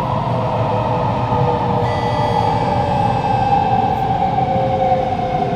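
Onboard sound of a Kawasaki Nippon Sharyo C751B metro train running in a tunnel: a strong traction-motor whine over a steady wheel-and-tunnel rumble, the whine slowly falling in pitch. Fainter high tones join about two seconds in and fade away.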